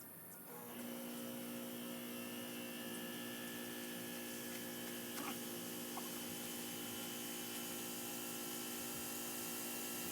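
A small electric motor switches on about a second in and runs with a steady hum.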